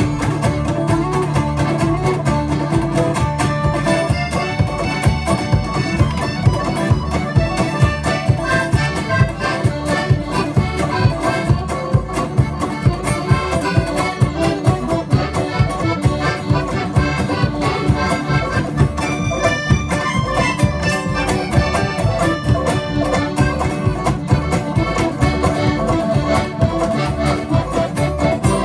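Live acoustic folk band playing an instrumental passage with a steady beat: accordion leading over mandolin, acoustic guitar and a plucked upright (doghouse) bass.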